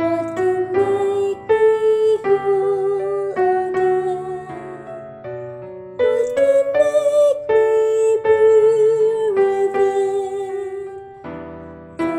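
Piano accompaniment with a soprano voice singing a slow hymn melody, holding long notes with vibrato.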